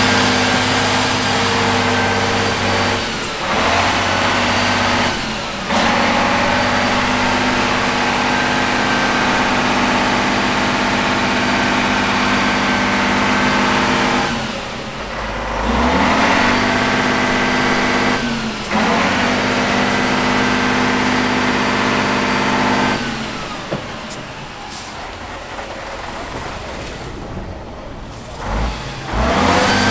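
Diesel engine of a Tatra 8x8 trial truck working hard under load as it pulls through mud and up a bank. The revs hold high and steady, with brief drops a few times, then fall to a lower, quieter run for several seconds near the end.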